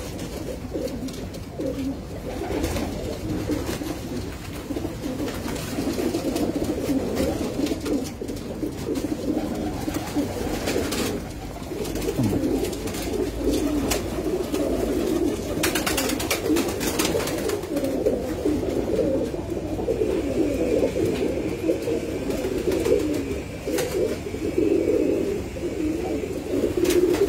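A flock of domestic pigeons cooing without a break, many calls overlapping into a steady chorus. A few brief sharp noises cut through it.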